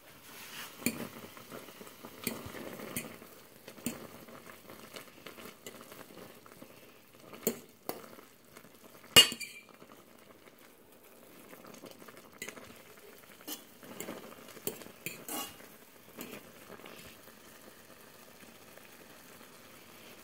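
Metal fork stirring instant ramen noodles in a stainless steel pot of bubbling broth, clinking against the pot now and then, with one loud clank about nine seconds in.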